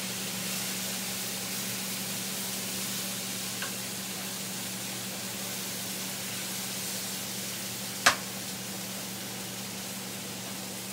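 Bitter melon and banana blossom sizzling in hot oil in an electric skillet as they are stirred with a metal spatula, over a steady low hum. A single sharp knock comes about eight seconds in.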